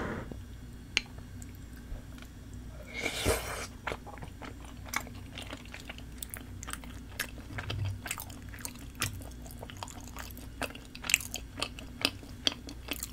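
Close-miked eating sounds of spicy tteokbokki, chewy rice cakes in thick sauce: wet chewing with many short clicks and smacks from the mouth. A longer breathy rush comes about three seconds in.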